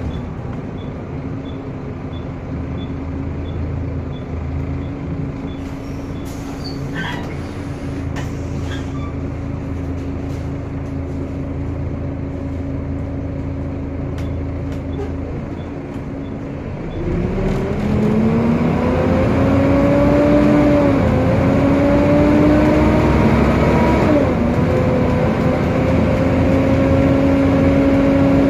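Volvo B7TL double-decker bus heard from the upper deck, its drivetrain running with a steady drone and whine. About 17 seconds in the sound grows louder as a whine rises in pitch, dips briefly twice, and settles into a loud steady whine: the bus's loud cooling fan.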